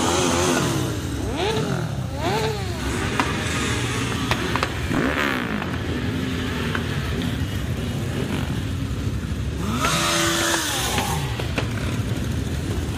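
A column of motorcycles, sport bikes and cruisers, riding past one after another at low speed. Overlapping engines rise and fall in pitch as each bike goes by, with a louder pass about ten seconds in.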